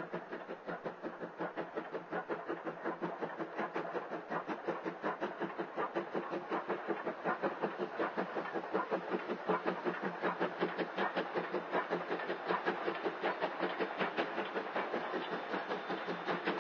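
Japanese National Railways C12 steam tank locomotive working hard, its exhaust chuffing in an even beat of about three a second. The beats grow louder over the first few seconds as it draws near.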